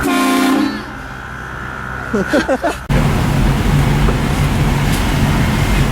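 Truck-mounted Shocker Classic air train horn blasting, cutting off about half a second in. About three seconds in, a vehicle engine starts running loud and steady.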